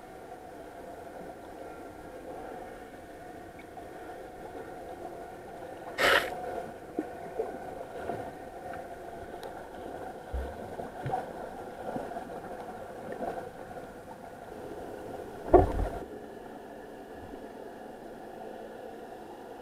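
Underwater ambience picked up by a camera in its waterproof housing: a steady hum with faint tones, broken by two sharp knocks, one about six seconds in and a louder one near the end, and a few fainter clicks, typical of the housing being bumped or handled.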